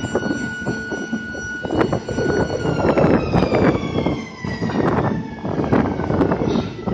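Rotary wagon tippler turning a loaded open rail wagon over to dump its coal. A high machine whine holds steady, then slowly drops in pitch from about two and a half seconds in. Beneath it is a dense rumble of clatter and metal knocks, growing louder after a second or two, as the coal slides out.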